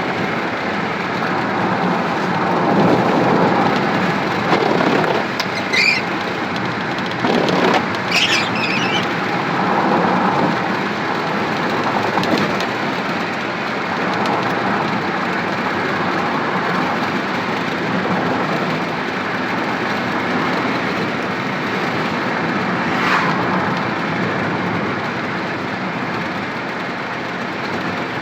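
Road vehicle driving steadily, its engine and road noise making a constant rush, with a few brief high squeals.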